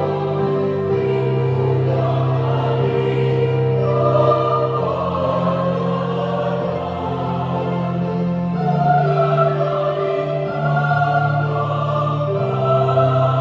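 Youth choir singing a hymn in several-part harmony, holding long sustained chords that change every few seconds.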